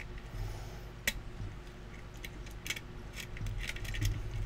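Faint, scattered metallic clicks and scrapes of a pick working the pins inside a brass E-Z Set pin-tumbler lock cylinder while a tension wrench holds it turned, with one sharper click about a second in.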